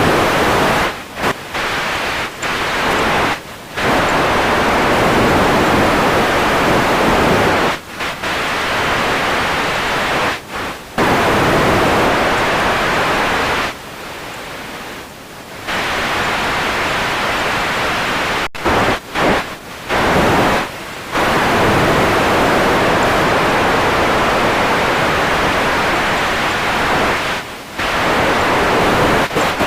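Radio static: a loud, even hiss that keeps cutting out and back in, in quick choppy breaks at times, with long steady stretches between and a quieter patch about halfway through.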